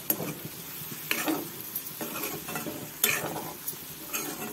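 Metal spatula scraping against a metal kadai as brinjal wedges are stirred in hot oil, with a light sizzle underneath. About four scraping strokes come a second or so apart.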